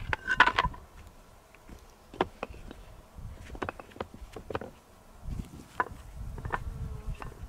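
Flat stones clacking and scraping as they are handled and set in place, with a burst of knocks in the first second and then scattered single clicks.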